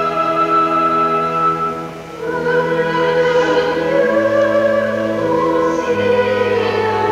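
Church music: slow, held chords with singing over them, pausing briefly about two seconds in.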